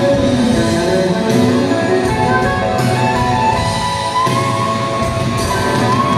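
Live rock band playing an instrumental passage: electric guitars over a drum kit, with a long held high note from about four seconds in.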